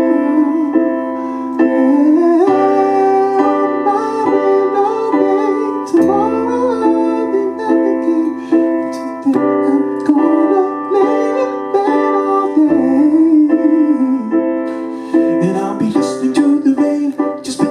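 Live music from a solo singer-pianist: piano chords under a gliding, wordless vocal melody, with no sung lyrics.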